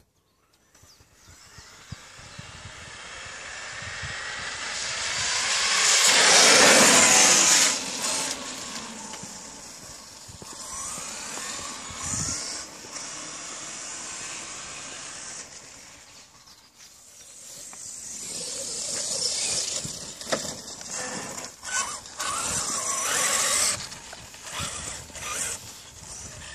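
The brushless electric motor of an HPI Savage Flux HP XL RC monster truck whines as the truck accelerates, with tyre noise. It rises in pitch and loudness to a peak about seven seconds in, then drops off suddenly. A second run builds again around twenty seconds in, with scattered knocks.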